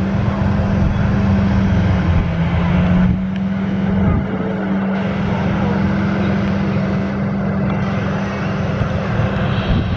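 Arriving airliner's engines, a steady low drone with a constant hum that neither rises nor falls.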